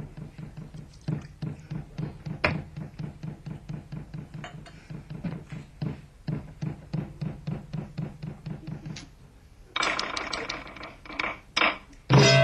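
Percussion tapping a quick, even rhythm of about five strokes a second. Near the end, a few louder strikes and then a loud attack as sustained music with held tones comes in.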